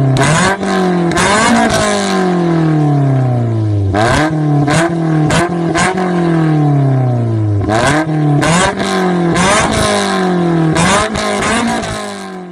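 Toyota Avanza Veloz four-cylinder engine blipped repeatedly through an aftermarket ORD Pro Series muffler and header. Each rev climbs quickly and then sinks slowly back toward idle, five or six times, before the sound fades out near the end.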